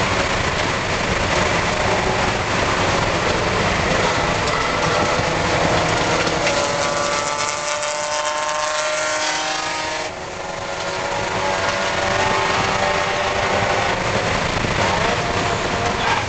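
Spec Miata race car's four-cylinder engine heard from inside the cabin, running hard at speed. Around the middle the engine note climbs in pitch, then the sound drops briefly about ten seconds in before it picks up again.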